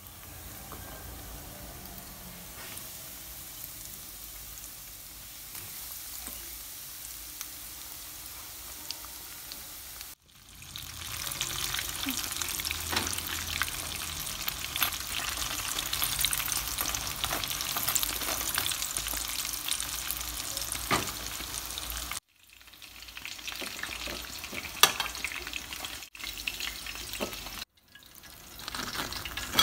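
Breaded chicken pieces deep-frying in hot oil, sizzling steadily. After about ten seconds the sizzle grows louder and crackles with many sharp pops.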